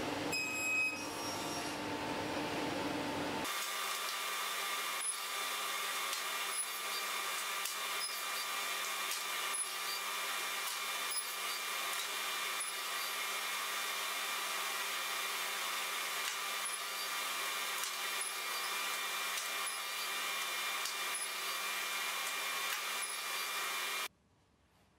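Sliding table saw running steadily with a level machine hum, a short clatter about a second in. The sound cuts off sharply near the end.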